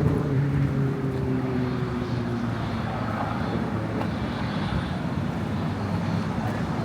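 A passing engine's low hum, dropping slightly in pitch as it fades over the first couple of seconds. Then a steady wash of city background noise.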